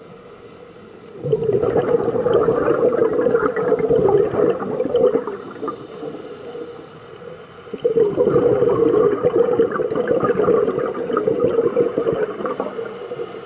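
Scuba diver's exhaled breath bubbling out of the regulator, heard underwater through the camera housing: two long bubbly exhalations of about four seconds each, the first starting about a second in and the second about eight seconds in, with a quieter pause between.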